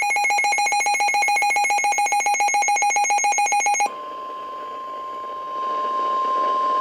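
Emergency Alert System alert tones: a loud electronic alarm pulsing rapidly, about thirteen pulses a second. A little before four seconds in it switches to one steady high tone, the National Weather Service warning tone that announces a flash flood warning broadcast.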